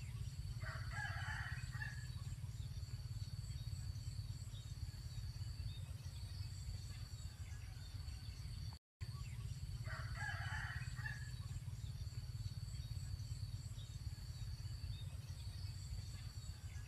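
Rooster crowing twice, the same crow about nine seconds apart, over a steady low rumble and a thin steady high whine.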